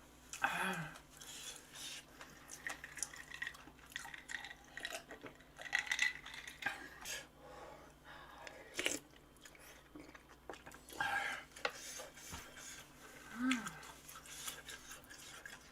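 A person chewing and crunching on spicy Korean cartilage-and-bone side dishes: irregular crackly bites and wet smacks. Two short hums, one just after the start and one near the end.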